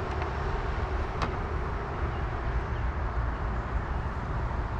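Steady low outdoor rumble with no clear pitch, with a faint click about a second in.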